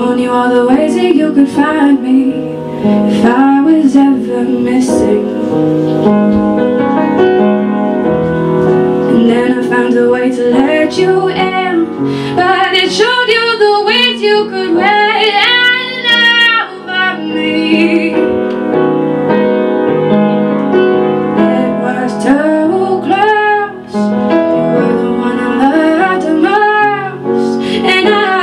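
A woman singing a slow song, accompanying herself on a J & J Hopkinson upright piano, with wavering vibrato on held notes around the middle.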